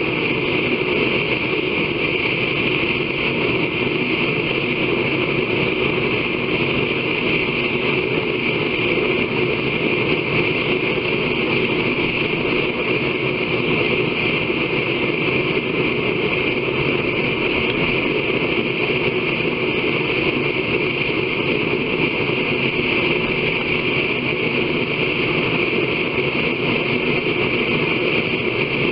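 Forge running with a steady, unbroken roar and no hammer strikes.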